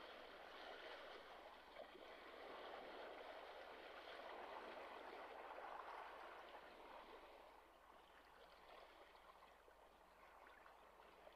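Faint sea surf washing against a rocky shore, a soft rushing that swells and ebbs, dipping about two-thirds of the way through.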